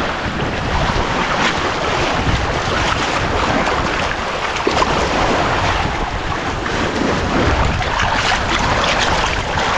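Wind buffeting the microphone over choppy lake waves washing against the shore, with water splashing now and then as a fish is rinsed by hand in the shallows.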